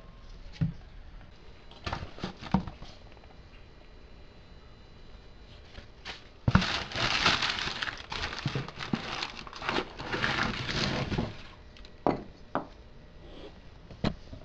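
Gloved hands handling a cardboard parts box and AC compressors on a shop floor: scattered knocks and clicks, with a stretch of rustling and scraping from about six to eleven seconds in.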